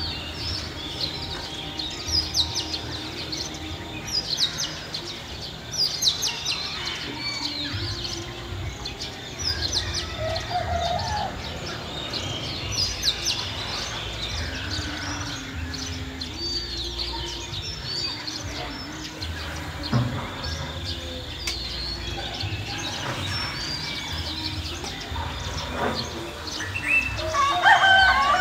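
Village ambience: small birds chirping and calling throughout over a steady low rumble, with a rooster crowing loudly near the end.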